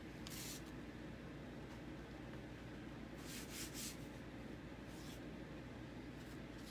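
Faint rustling of a thin plastic adhesive stencil transfer being peeled from its backing and handled, in short scratchy bursts about half a second in, a few around three and a half seconds, and one near five seconds, over a low steady room hum.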